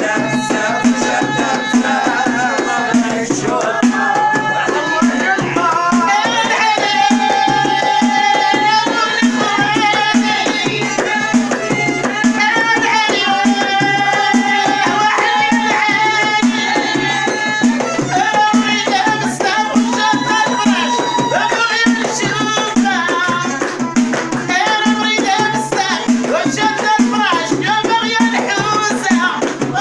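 Moroccan houariyat folk music played live: women sing with long held notes over a steady beat of a hand-struck frame drum, with hand clapping.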